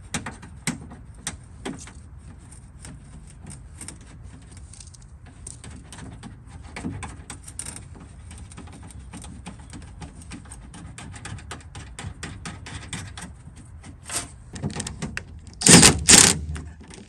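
Small metallic clicks and rattles from working inside a pickup truck's door, fitting a door lock cylinder and its retaining clip, with a louder burst of clattering near the end.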